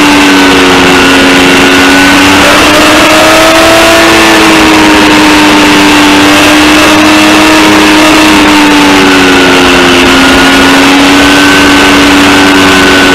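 Yamaha MT-09 three-cylinder engine running at a steady cruise, its note drifting slightly up and down with the throttle, over a loud rush of wind on the helmet-mounted microphone.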